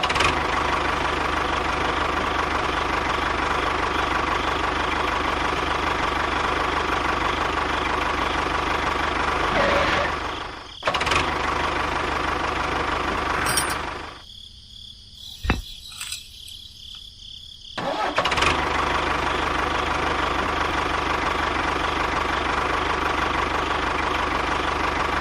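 A small motor or engine running steadily. It cuts out briefly about ten seconds in, then again for about four seconds around the middle, and starts up again.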